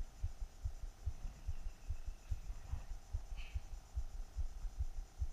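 Low, dull thumps repeating several times a second at uneven spacing, with a faint high tone briefly near the middle.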